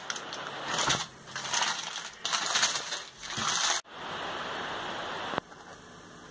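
Baking paper crinkling and rustling in a run of irregular bursts as it is pulled out of a round cake tin with the cake inside. After about four seconds it gives way to a steady hiss for a second and a half.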